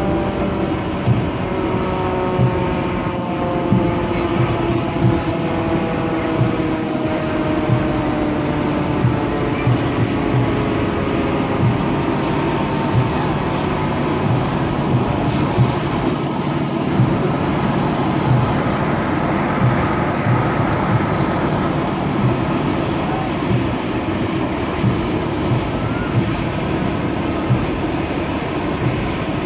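Fire engines passing in a parade, their engines running under a siren that winds down: a held tone sliding slowly lower over about the first twelve seconds. A low thump repeats about once a second throughout.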